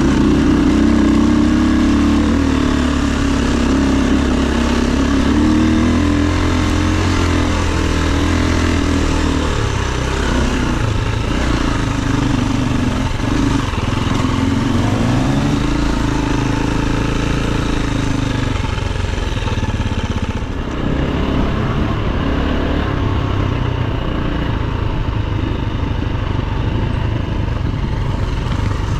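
KTM EXC enduro dirt bike engine, heard close from the rider's own bike, running in low gears on a rough trail, its pitch rising and falling as the throttle opens and closes. The engine eases off briefly about twenty seconds in.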